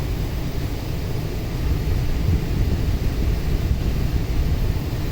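Air conditioner's indoor unit running with its panel open, a steady low rumble of the blower and airflow.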